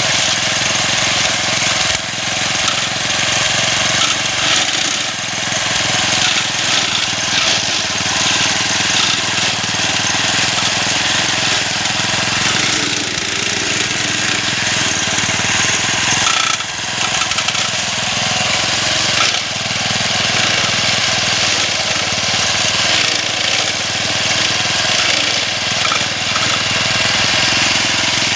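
Small engine of a homemade push-type grass-cutting machine running steadily under load as it cuts thick grass, with a few brief dips in level.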